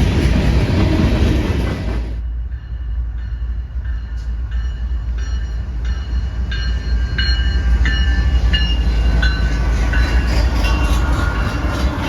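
Train rolling past: a loud rush of rolling noise that cuts off abruptly about two seconds in, then a steady low rumble with a string of short high-pitched tones from about four seconds on.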